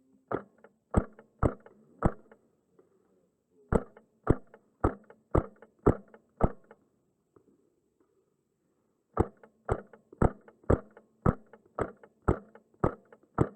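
Wolverine MTW HPA airsoft rifle firing semi-auto, sharp shots about two a second in three strings with short pauses between them.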